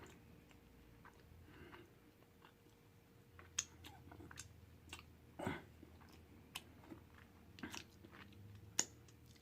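A person chewing food close to the microphone: faint, with scattered wet mouth clicks that get busier about three and a half seconds in.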